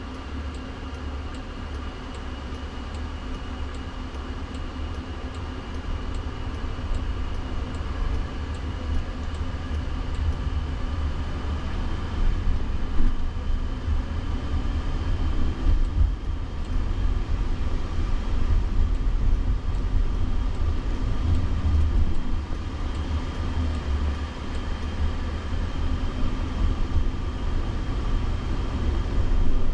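Road and tyre noise inside the cabin of a Jaguar I-Pace electric car driving on city streets. A steady low rumble grows gradually louder as the car picks up speed.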